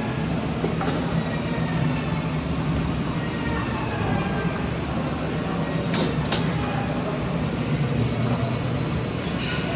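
A machine running steadily with a constant low hum, with a couple of sharp clicks about six seconds in.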